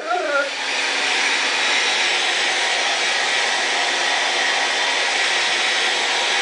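Blow dryer running steadily with an even rushing hiss and a faint high tone. A brief falling whine comes right at the start.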